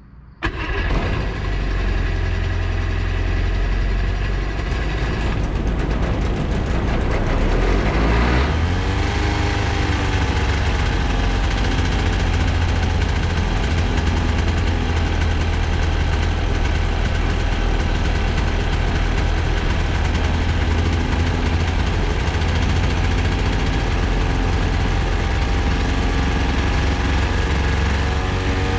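Rebuilt Rotax ultralight aircraft engine starting abruptly, then idling with the propeller turning. About eight seconds in its speed rises briefly, then it settles into a steady idle.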